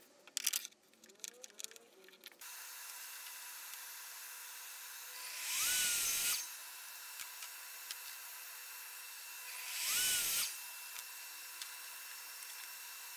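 Evolution miter saw making three short cuts through 18 mm plywood, about four seconds apart, each starting with the motor whine rising in pitch as the blade spins up. Light knocks and clicks of the workpiece being set against the fence come first, and a steady hum runs under the cuts.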